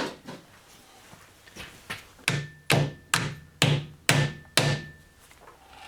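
Hammer tapping a metal workpiece held in a lathe's four-jaw chuck to nudge it true and cut its runout. After a brief clatter at the start come two light taps, then six firmer ones about two a second, each leaving a short metallic ring.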